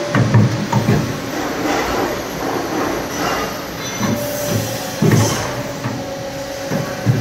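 CNC pipe bending machine running its bend cycle on a steel tube, its motors running under repeated metallic clunks and knocks as the clamps and bend die work. A steady whine sounds for a couple of seconds in the middle.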